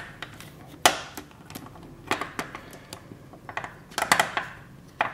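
Irregular sharp clicks and light knocks from a model RC jet's retractable nose landing gear being moved by hand, its strut and metal linkage being swung out to the extended position.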